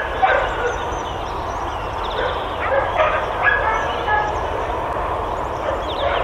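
Dogs at a boarding kennel barking, overlapping barks with no pause.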